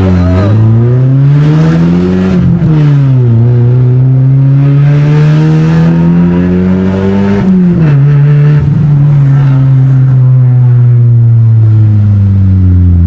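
Chevrolet Astra 1.8's four-cylinder engine accelerating through the gears: the revs climb, drop at a shift about two and a half seconds in, climb again more slowly, drop at another shift near eight seconds, then hold roughly steady and ease off slightly.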